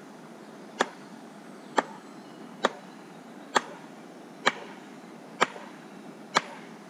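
Wooden mallet striking the top of a long wooden stake to drive it into the ground: seven sharp knocks, about one a second.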